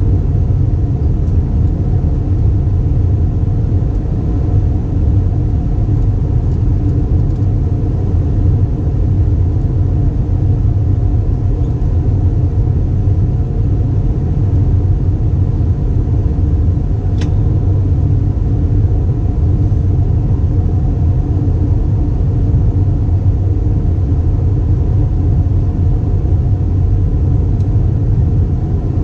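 Airbus A320 cabin noise in flight: a loud, steady low drone of the engines and airflow with a faint steady hum on top. A single short click about 17 seconds in.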